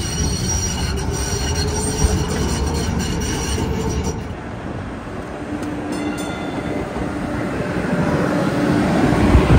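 Boston Green Line light-rail trolley running on its rails: steel wheels squeal in steady high tones for about the first four seconds over a constant rumble. After that the squeal dies away and the rumble grows louder toward the end.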